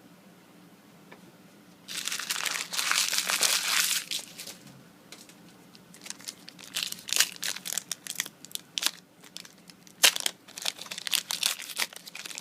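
Foil Yu-Gi-Oh booster pack wrapper being torn open and crinkled: a loud burst of crinkling about two seconds in, then scattered crackles and rustles of the wrapper being handled.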